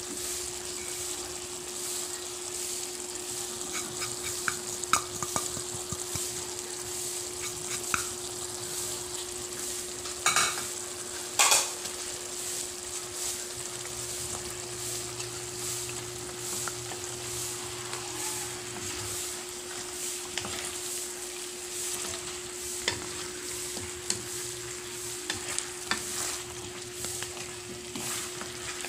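Chicken frying and sizzling in a wok, with a steady low hum underneath. A wooden spatula knocks sharply against the pan a couple of times about ten seconds in, and scrapes and clicks often in the second half as the pieces are stirred.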